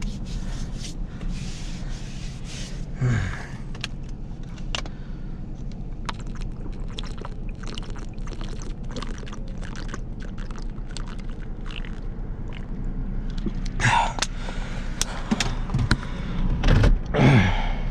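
Vehicle engine idling steadily inside the cab, with scattered light clicks and knocks, and a person drinking water, with gulps and breaths, near the end.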